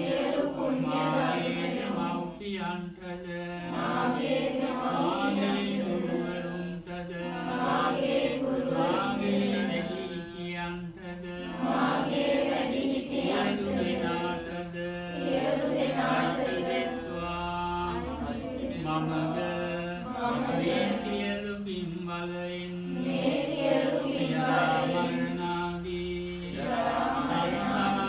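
A group of voices chanting Buddhist verses together in a steady, near-monotone recitation, with short breaks for breath every few seconds.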